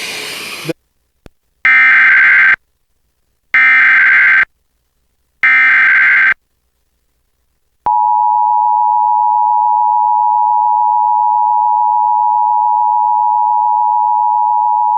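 Emergency Alert System tornado warning activation. A brief snatch of program audio cuts off, then come three identical warbling SAME digital header bursts of about a second each, which encode the warning. About 8 s in, the steady two-tone EAS attention signal (853 and 960 Hz) starts and holds, announcing the voice message that follows.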